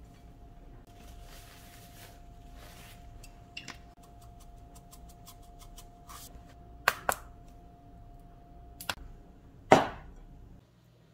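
Kitchen handling sounds over a ceramic bowl: soft rustling of dried seaweed being laid in with metal tongs and a few light clicks, then sharp clacks and one loud knock near the end as the bowl is set down on a table. A faint steady hum runs underneath and stops just before the end.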